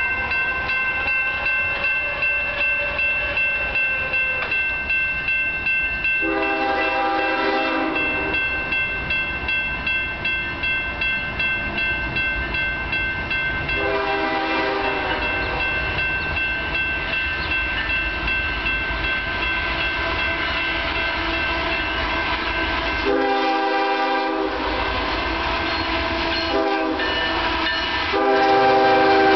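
Railroad grade-crossing bell ringing steadily while an approaching Union Pacific freight locomotive sounds its multi-note air horn for the crossing. There are long blasts about six, fourteen and twenty-three seconds in, then a short blast and a final long, louder blast as the locomotive reaches the crossing.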